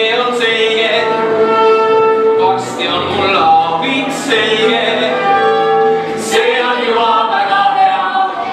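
A song with singing voices holding long notes over instrumental accompaniment, in phrases that pause briefly twice.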